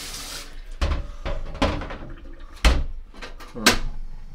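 A running kitchen tap shuts off about half a second in. Then comes a string of about half a dozen knocks and thuds of kitchen cupboard doors being opened and shut and things being handled.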